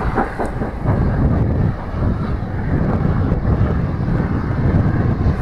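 Southern U class 2-6-0 steam locomotive 31806 working hard uphill with a train, its exhaust beats heard at a distance under heavy wind buffeting on the microphone.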